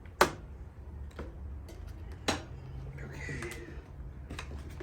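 Sharp metallic clicks and knocks from hands and tools working the handlebar clamp hardware on a Harley-Davidson Street Glide. There are two loud clicks about two seconds apart, the first the loudest, and a few lighter ticks between them, over a steady low hum.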